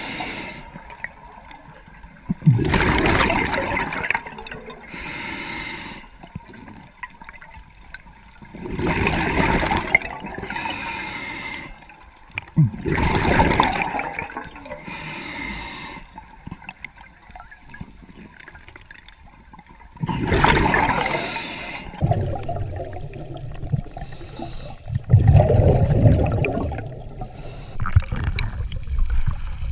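A diver breathing underwater: bubbling bursts of exhaled air, each a second or two long, come every few seconds, with fainter hissing between them. A low, churning water noise builds near the end.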